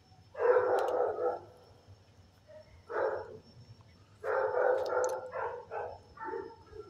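Dogs in shelter kennels barking in bouts: a burst of barks just after the start, a single bark about three seconds in, then a quick run of barks from about four to six seconds.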